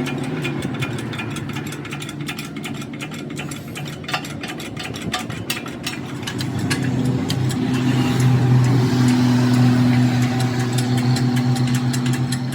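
A machine running with a steady hum, under rapid ticking for the first half; the hum grows louder about seven seconds in.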